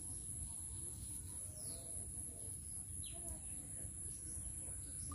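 Outdoor ambience: a few short, falling bird chirps over a steady low rumble and a constant high-pitched whine.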